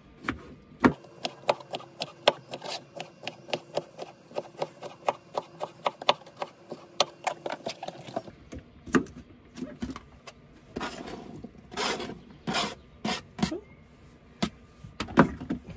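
Kitchen knife chopping cucumber on a cutting board in quick, even strokes, about four a second, for the first half. After that come a few scrapes and knocks as the cut pieces are pushed off the board into a bowl.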